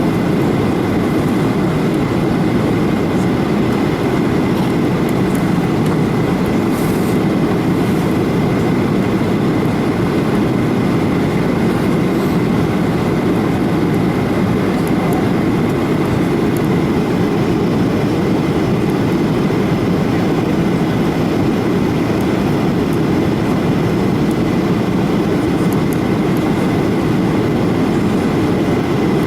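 Airliner cabin noise: a steady, deep rush of engine and air noise with a faint, constant high tone.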